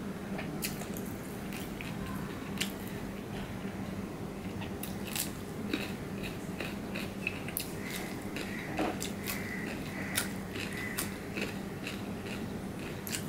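Close-up biting and chewing of a crisp cucumber slice: sharp, crisp crunches, a few at first and coming more often in the second half.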